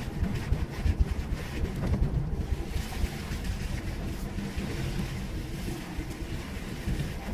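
Car driving over a rough, rocky dirt mountain track, heard from inside the cabin: a low, uneven engine and tyre rumble with jolts from the bumps. A rushing hiss joins in from about three seconds in.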